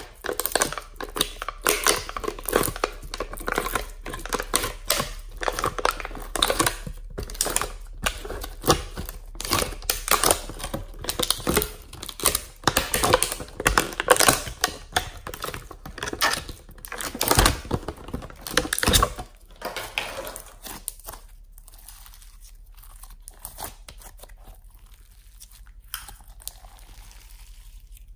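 Glittery slime being pulled out of a plastic palette tray and squeezed by hand: dense sticky crackles, pops and squelches. The crackling thins out to faint, occasional sounds about two-thirds of the way through.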